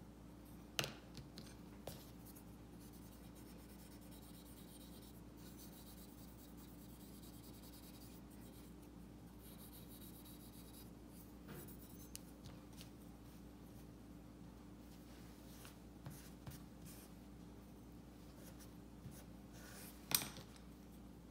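Faint scratchy strokes of a brush and cotton bud working oil paint on a porcelain plaque, with a few light clicks and taps, the loudest near the start and near the end, over a steady low hum.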